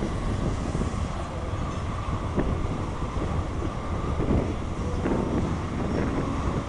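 Freight cars of a mixed freight train rolling past, a steady low rumble with scattered short wheel clacks, and wind on the microphone.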